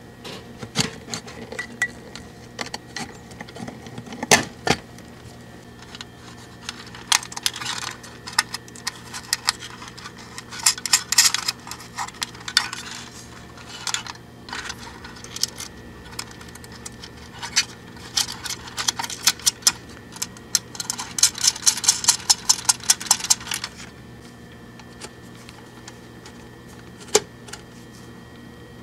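Hands handling parts on a metal tube amplifier chassis: scattered clicks and knocks, with two longer stretches of quick metallic rattling in the middle and a single sharp click near the end.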